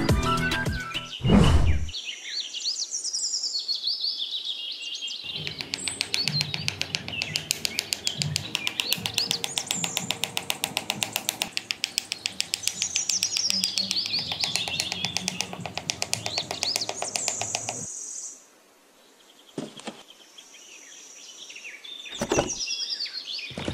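Birds chirping and twittering over background music, dropping away briefly about three-quarters of the way through.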